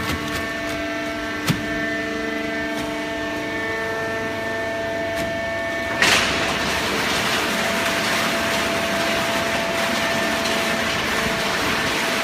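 Fully automatic horizontal hydraulic cardboard baler running, with a steady machine hum and a sharp knock about 1.5 s in. About 6 seconds in, a sudden louder rush of noise starts and carries on steadily.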